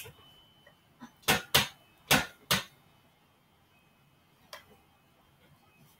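Red home gymnastics bar knocking and clicking in its frame as a girl swings around it: about five sharp knocks in quick succession, then one fainter knock a couple of seconds later.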